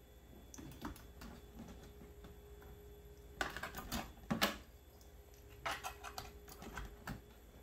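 Light clicks and taps of a USB flash drive being fumbled into the display's USB port, in small clusters about three and a half and six seconds in, over a faint steady hum.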